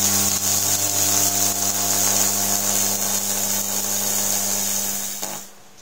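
Continuous-wave solid-state Tesla coil throwing arcs into the air: a steady buzzing hiss of sparks. The buzz is at twice the mains frequency because the coil runs on unfiltered full-wave rectified mains. The arcing weakens and stops near the end.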